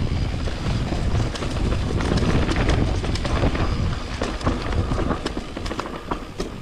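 Riding a mountain bike along a dirt trail: wind buffeting the microphone and tyre noise, with frequent rattles and clicks from the bike. The noise eases off after about four seconds.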